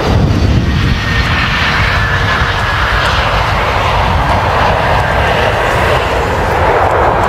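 Lockheed SR-71 Blackbird's twin Pratt & Whitney J58 jet engines running loud and steady at full power with afterburners lit for takeoff. A faint whine slowly falls in pitch in the first half.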